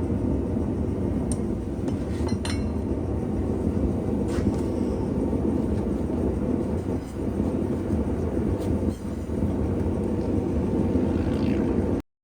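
Blacksmith's forge fire running with a steady rumbling roar, with a few light metallic clinks over it; it cuts off suddenly near the end.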